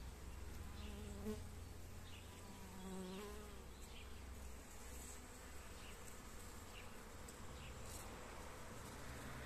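Honeybee buzzing in flight, passing close twice, with a wavering pitch.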